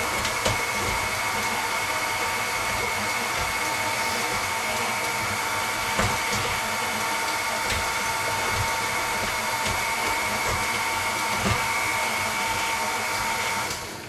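KitchenAid Artisan stand mixer running on low, a steady motor whine, with a flex-edge beater turning a butter and sugar mix in a glass bowl and a few faint knocks. The motor is switched off near the end.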